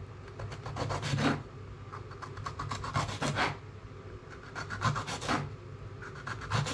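Kitchen knife sawing through firm vegetable pieces on a plastic chopping board. Each stroke is a short rasping cut, about one every two seconds, most ending in a light knock of the blade on the board.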